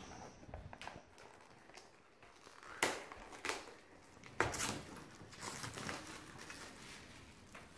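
Small cardboard game box being opened and handled: card rustling and scraping, with two louder scuffs about three and four and a half seconds in.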